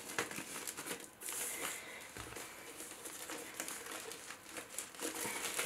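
Faint crinkling and rustling of a plastic wrapping bag being handled and pulled open by hand, with small scattered crackles.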